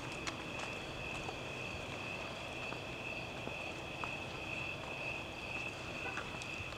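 Crickets trilling in one steady, unbroken high tone, with a few faint ticks scattered through.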